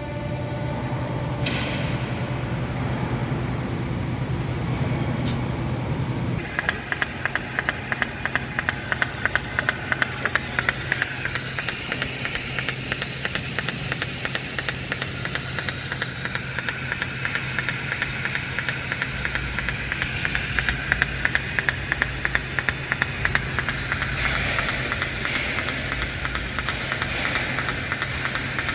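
Automatic plasma welding arc: a steady low machine hum, then about six seconds in the arc strikes into a loud, continuous hiss with a fast crackle and regular louder ticks.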